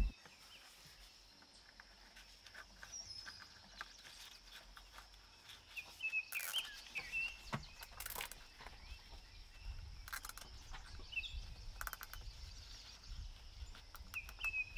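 Faint outdoor background with scattered short bird chirps, and a few sharp clicks and knocks spread through it.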